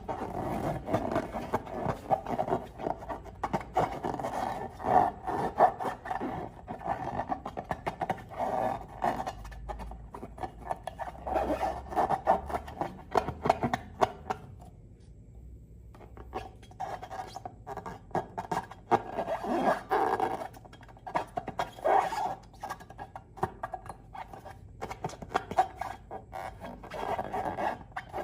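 Close-up hand-handling sounds of balloons and slime: continuous rubbing and scraping with many quick crackling clicks, stopping briefly about halfway, then resuming.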